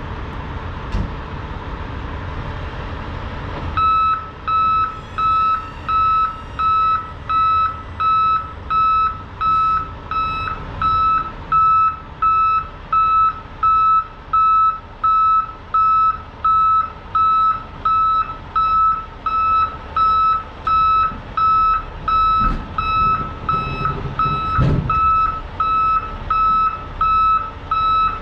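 Vehicle backup alarm beeping steadily at about one beep a second, starting a few seconds in, over a low engine rumble, with a dull thump near the end.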